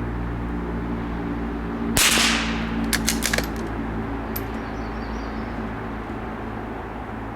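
A single shot from a Savage Mark II bolt-action .22 LR rifle about two seconds in, with a short ringing tail. About a second later comes a quick run of sharp clicks from the bolt being worked, then one more click, over a steady low hum.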